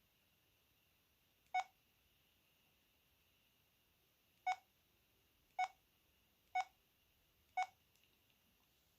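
VK530 mobile phone's keypad beeping as keys are pressed: five short beeps, all the same pitch. One comes about one and a half seconds in, then four follow about a second apart.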